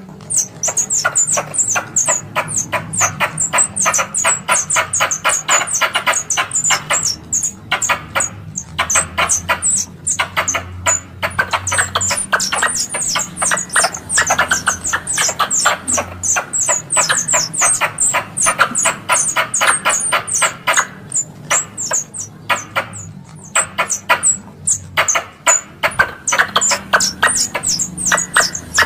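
Squirrel calls: a fast, sustained run of sharp chattering chips, several a second, each with a high downward-sweeping note, broken now and then by short pauses.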